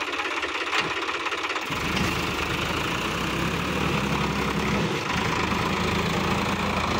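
Sonalika DI-50 RX diesel tractor engine running steadily under load as it hauls a fully loaded trolley through mud. Its deep, evenly pulsing note comes in sharply about two seconds in.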